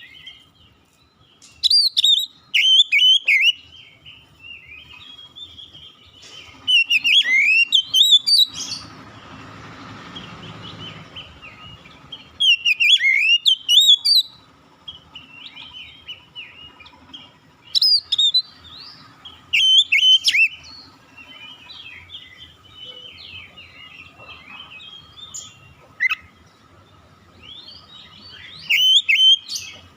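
Oriental magpie-robin (kacer) singing: loud, quickly varied whistled phrases in short bursts every few seconds, with softer twittering between them.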